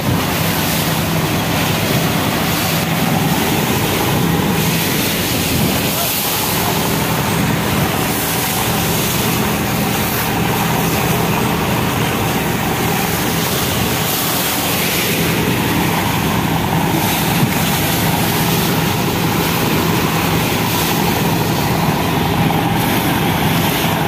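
A passenger launch's engine drones steadily over a loud, continuous rush of storm-churned river water along the hull, with wind buffeting the microphone.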